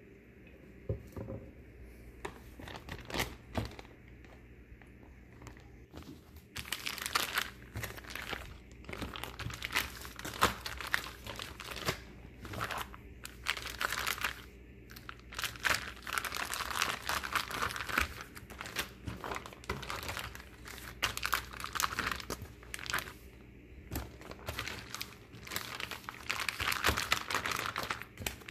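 Plastic zip-top freezer bag crinkling and rustling in repeated bouts as a hand squeezes and kneads Italian-dressing marinade through the raw chicken thighs inside it, starting about six seconds in after a few quiet clicks.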